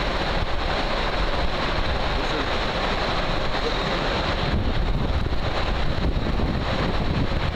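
Steady roar of ore-processing plant machinery running, an even wash of noise with no distinct knocks or changes.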